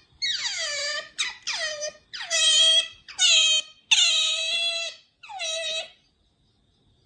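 Pet otter squeaking: a quick run of about seven high-pitched calls, each sliding down in pitch and then levelling off. The longest call lasts about a second, and the calls stop about six seconds in.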